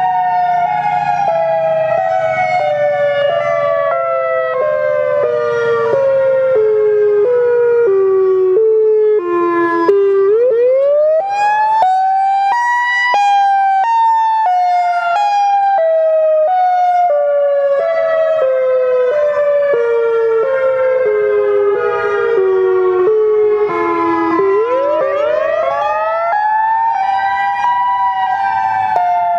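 Electronic emergency-alert siren: a chord of several tones falls in small steps for about ten seconds, then sweeps quickly back up. The pattern repeats, with another step-wise fall and a second upward sweep later on.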